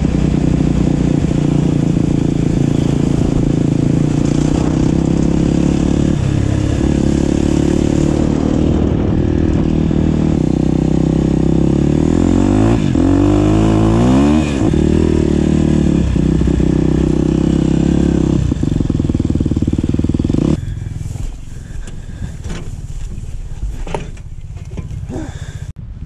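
Dirt bike engine running steadily under way, heard from the rider's seat, with the revs rising and falling once about halfway through. The engine sound drops off sharply about three-quarters of the way in.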